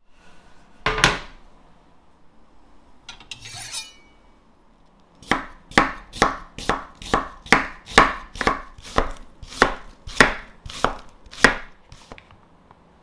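Kitchen knife chopping on a wooden cutting board: an even run of about a dozen cuts, roughly two a second, starting about five seconds in. Before it, one sharp knock about a second in and a short rustle.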